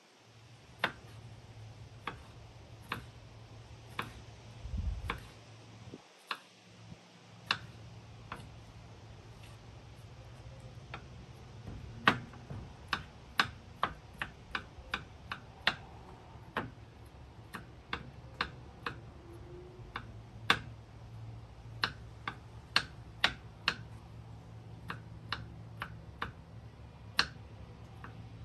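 Kitchen knife chopping garlic cloves on a wooden cutting board: sharp separate chops, about one a second at first, coming quicker at two or three a second in the middle.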